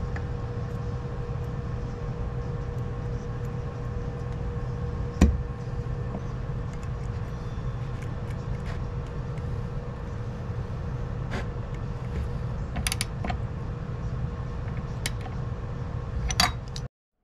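Metal hand tools clicking and clinking against a vintage Craftsman chainsaw's clutch as it is worked loose with a spanner and a wrench, with one sharper knock about five seconds in and a few more clicks near the end. Underneath runs a steady low hum with a constant tone, and everything cuts off suddenly near the end.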